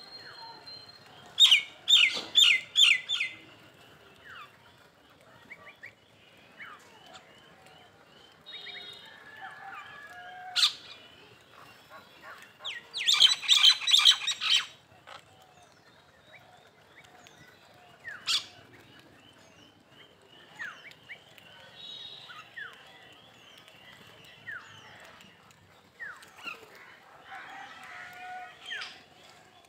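Birds chirping, with loud runs of quick, sharp chirps about a second and a half in and again around thirteen to fifteen seconds in, and single chirps in between over a faint, steady high ticking.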